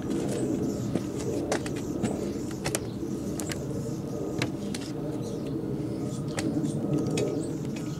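Singer 306 sewing machine head being tipped back and handled, with a string of sharp metal clicks and knocks about a second apart over a steady low background rumble.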